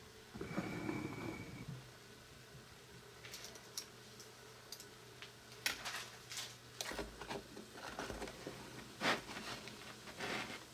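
Foam fizzing on a toy volcano reactor, crackling and popping, with a short rustle about half a second in and scattered sharp clicks through the rest. Near the end a plastic spoon pokes into the foam.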